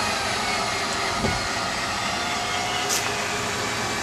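A motor-driven machine running steadily: an even rushing noise with a faint whine over it.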